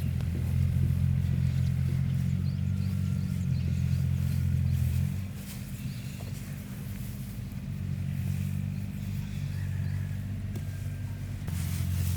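An engine running steadily with a low hum. It is louder for the first five seconds, eases off after that, and picks up again near the end.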